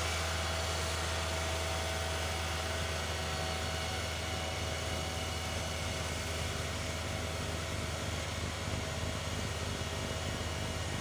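John Deere 1023E compact tractor's three-cylinder diesel running steadily with its front-mounted 47-inch snowblower engaged, throwing wet snow: a continuous low drone with a steady whine above it.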